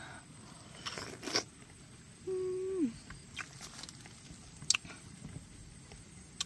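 Sparse soft clicks and mouth sounds of someone tearing and eating a fresh red dragon fruit, with one short hummed 'mm' about two seconds in that holds steady and drops at the end.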